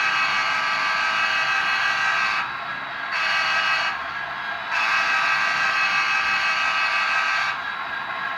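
Model train locomotive's multi-tone horn sounding in blasts: long, short, then long, finishing the long-long-short-long grade-crossing signal. A steady, quieter running sound continues between the blasts.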